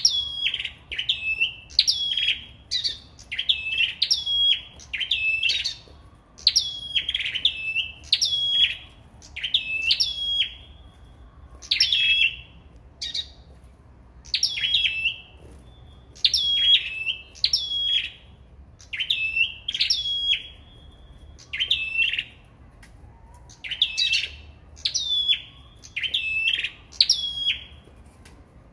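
Caged small songbirds of the kind kept in Vietnam as 'sâu đầu đỏ' (red-headed birds) calling in a singing contest: high, sharp chirps that sweep downward, repeated in quick runs with brief pauses.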